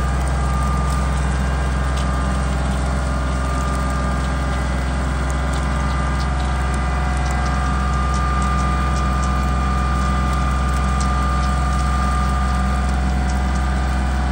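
Kubota compact tractor running steadily under load while its rear rotary cutter (bush hog) mows brush, a constant engine drone with a steady whine over it. Faint clicks come now and then.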